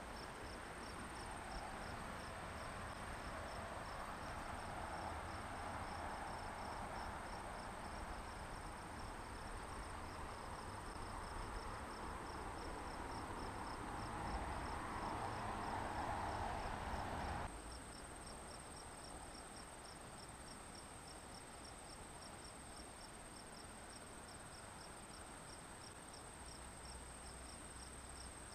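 Crickets and other insects chirping: a steady high trill with a quick, even pulsing chirp under it. A broad rushing noise lies over them for the first two-thirds and cuts off suddenly.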